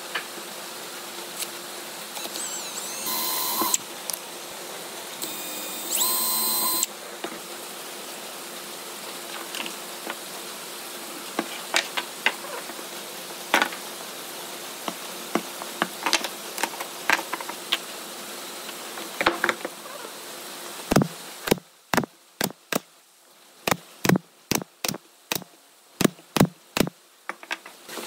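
Small wooden box parts being fitted together by hand: scattered light wooden clicks and knocks over a steady workshop hum, with two short high whining bursts in the first seven seconds. About two-thirds of the way through the hum drops away and about a dozen sharp wooden knocks follow in quick succession.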